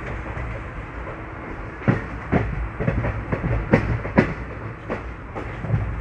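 Train wheels running over rail joints with a steady low rumble. From about two seconds in there is a run of sharp clacks, several a second.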